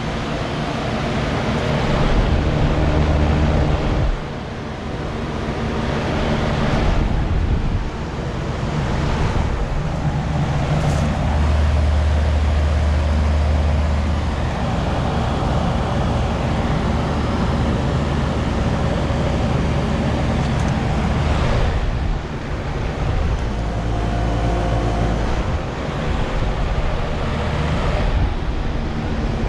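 Outdoor air-conditioner condensing unit running: the condenser fan rushes steadily over a low, steady compressor hum.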